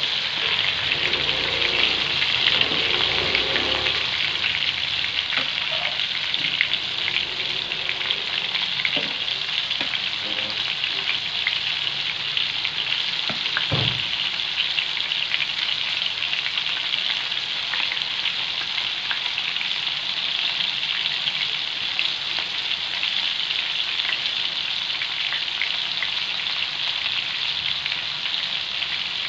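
Battered prawns deep-frying in a pan of hot oil: a steady crackling sizzle, with the pieces stirred and turned by a slotted spoon. One short knock about halfway through.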